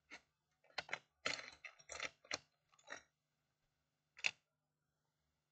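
Loose metal-and-plastic laptop charger adapter tips clattering and clicking against each other as hands rummage through a cardboard box of them: a string of short rattles, with one sharper click about four seconds in.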